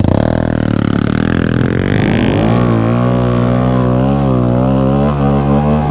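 Honda Grom's small single-cylinder engine revving up from idle as the bike pulls away, then running steadily under way with slight rises and falls in pitch.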